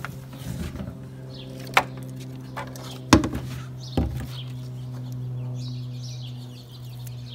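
Sharp plastic clicks and taps as the stock third brake light and its wiring connector are handled, the loudest two about three and four seconds in. Under them a steady low hum, with birds chirping in the second half.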